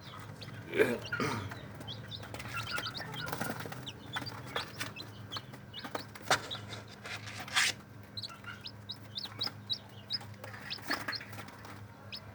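Day-old ayam kampung super chicks peeping: many short, high chirps all through, with a few louder scuffs and knocks among them.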